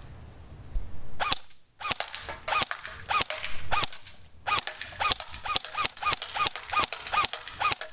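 Battery-powered Black Ops AK-74 airsoft rifle firing in semi-automatic: a quick string of single shots, about three a second, starting about a second in, with brief pauses between bursts of trigger pulls.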